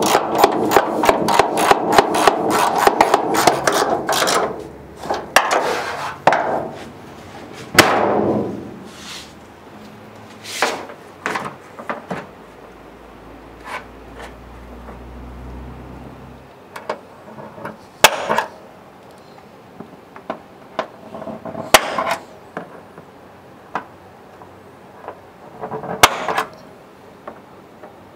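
Hand tools at work on the car: a fast run of strokes, about five a second, for the first four seconds or so, then scattered single knocks and clinks.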